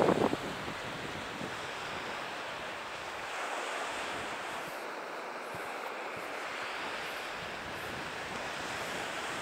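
Sea surf washing over the concrete tetrapods and rocks at the foot of a breakwater, a steady rush of waves.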